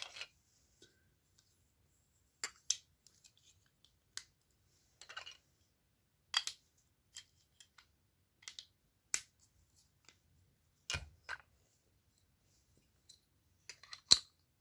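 Sparse clicks and brief rustles of small plastic toy pieces being handled and fitted together, with short silences in between.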